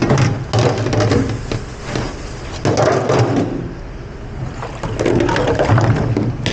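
Busy kitchen clatter: many quick knocks and clinks, as of dishware and trays being handled, over a steady low hum.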